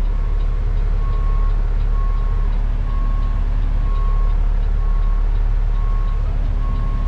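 Heavy-duty tow truck's diesel engine running as it backs up, heard from inside the cab, with its reverse alarm beeping steadily, a little more than once a second.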